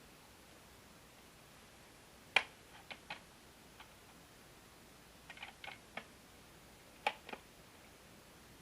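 A scattering of short, light plastic clicks and taps in irregular clusters from handling a View-Master virtual reality viewer.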